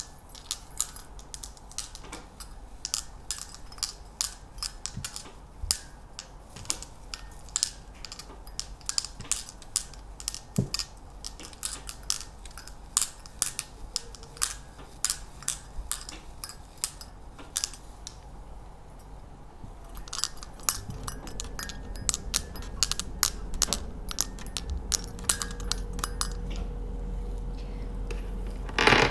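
Close-up ASMR tapping and handling sounds: quick, irregular, sharp light clicks, thinning out briefly about two-thirds of the way through.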